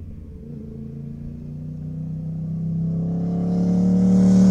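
A vehicle engine running at a steady pitch and growing steadily louder, with a rising hiss joining it near the end.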